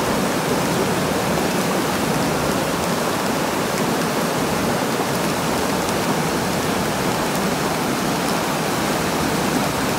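Muddy water rushing steadily through the breach channel of a model landslide dam built of gravel and soil.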